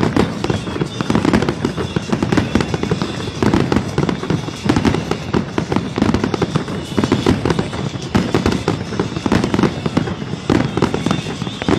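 Fireworks barrage: a continuous, dense run of bangs and crackling with no let-up.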